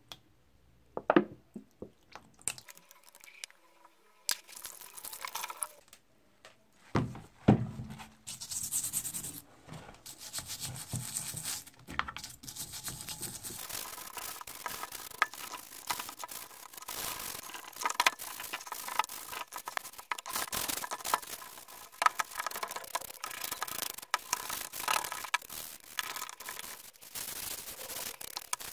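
Rusty cast-iron meat grinder body being scrubbed by hand in soapy water, a steady run of rapid scratchy rubbing strokes. A few sharp knocks come before the scrubbing starts.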